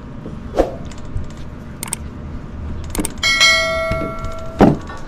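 A few light clicks and knocks, then a bell-like metallic ring that holds for about a second and a half and is cut off by a loud knock.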